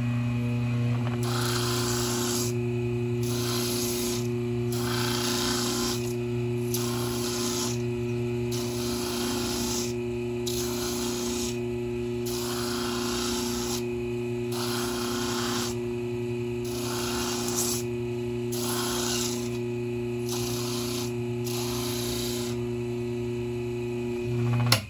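A homemade grinder built from an electric motor runs with a steady mains hum while a plastic keychain wheel is pressed against it, giving a grinding rasp in short passes about once a second as the part is worn down to size. The motor is switched off just before the end and its hum stops.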